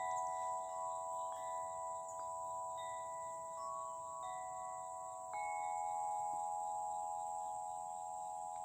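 Tuned tubular wind chimes ringing in the breeze: several clear, long-sustaining notes overlap as the clapper strikes the tubes every second or so, with a louder strike about five seconds in.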